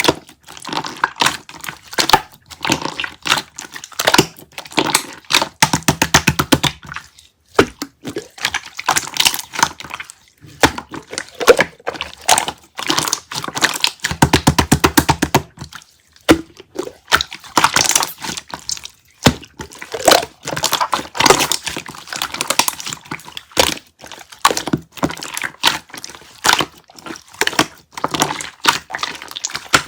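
Dense, irregular clicking and tapping, many sharp clicks a second with a few brief pauses, with a wet, squelchy edge at times.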